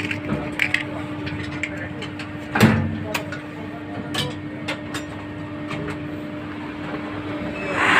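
Handling clicks over a steady hum, with a sharp scrape about two and a half seconds in as a match is struck. Near the end a handheld gas-cartridge torch lights and its flame starts to hiss loudly.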